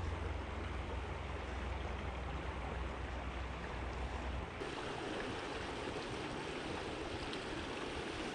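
River water rushing steadily. A low rumble sits under it for the first half and stops abruptly about halfway through.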